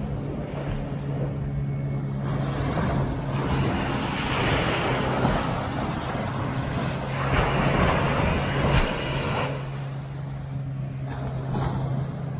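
Small waves washing up on a sandy beach in slow swells, with a steady engine hum underneath.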